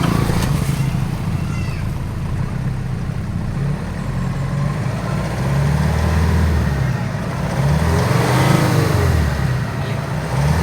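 Vehicle engine idling and being revved up a couple of times, with engine oil being pushed out through the exhaust.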